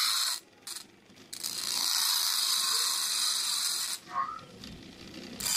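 Small motor of a CD/DVD player's loading mechanism driving its plastic gear train with a high whirring. It runs briefly, stops, gives a short blip, then runs for about two and a half seconds, stops, and starts again near the end.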